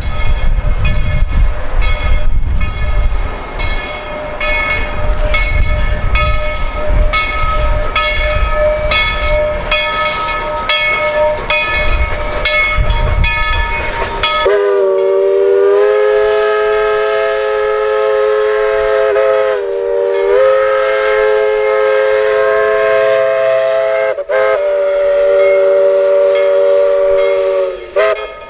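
Narrow-gauge steam locomotive running with a heavy low rumble and repeated exhaust beats. About halfway through it sounds a long multi-note steam chime whistle, held for over ten seconds. The whistle's pitch sags briefly a couple of times, then it falls away near the end.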